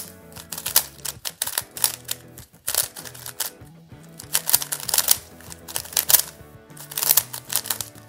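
Rapid, irregular clicking and clacking of a plastic Yuxin Little Magic M 3x3 speed cube being turned fast through a solve; the cube is set very tight. Background music runs underneath.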